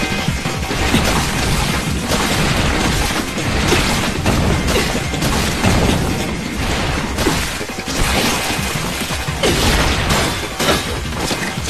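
Anime sword-fight sound effects: katana slashes and a rapid run of crashing impacts, one after another.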